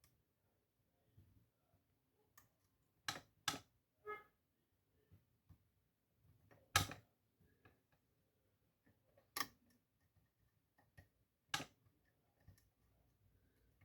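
Lock pick and tension wrench working the pins inside a custom challenge pin-tumbler lock, the Poltergeist: faint scraping with about six sharp clicks at uneven intervals and fainter ticks between.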